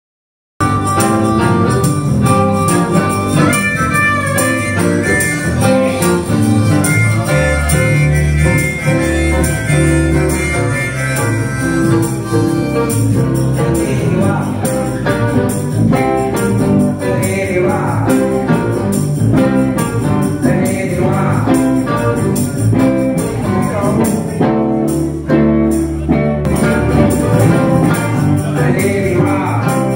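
A live blues band playing a song with guitars and singing. It starts about half a second in.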